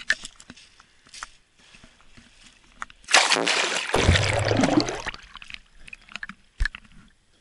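A few faint crunches of footsteps on beach pebbles, then, about three seconds in, about two seconds of sea water sloshing and bubbling around an action camera plunged under the surface. A single knock near the end.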